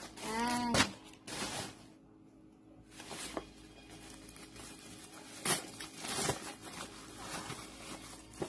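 Plastic packaging being handled and pulled open: scattered short rustles, crinkles and tearing crackles, with a quiet stretch about two seconds in.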